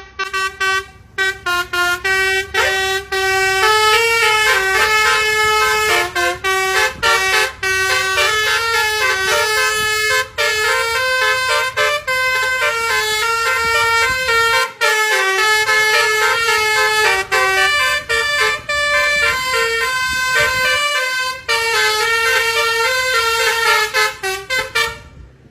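Bus telolet horn, a multi-tone air horn on an Indonesian bus, playing a jingle of quick stepping notes almost without a break, with a few short gaps, then trailing off near the end.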